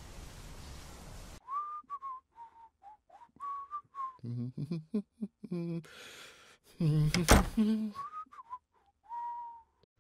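A person whistling a tune in short, clear notes, broken in the middle by a voice and a loud outburst with a sharp thud about seven seconds in, then a few more whistled notes.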